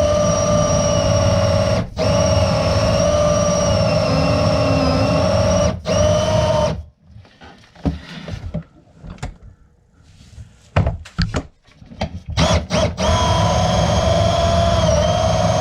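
Motorised drain-cleaning machine (sewer snake) running with a steady whine as it cables a backed-up main sewer line. It cuts out for about six seconds, broken by a few short knocks and clanks, then starts running again.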